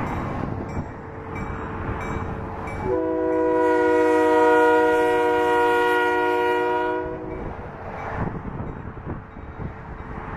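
Approaching locomotive's air horn sounding one long blast of several notes together, starting about three seconds in and lasting about four seconds, over the rumble of the oncoming train.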